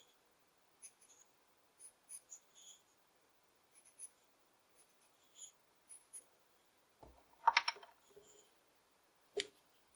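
Carving knife slicing small shavings from a basswood stick: quiet, crisp little cuts every half second or so, a louder rasping scrape about seven and a half seconds in, and a sharp click near the end.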